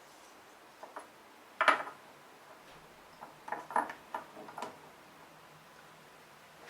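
A few light metallic clinks and knocks of tools or metal parts being handled. The loudest comes about a second and a half in, followed by a quick run of smaller clinks a couple of seconds later.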